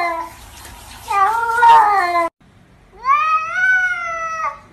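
Domestic cats meowing: two wavering meows, then a long drawn-out meow that rises and holds, about three seconds in. The last meow is the sort of cat call captioned as "I love you".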